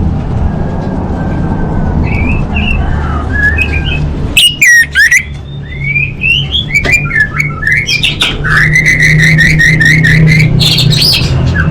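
Orange-headed thrush (anis merah) singing a varied song of whistled glides and sharp chirps, with a long run of rapid repeated notes from about eight seconds in. A steady low hum runs underneath.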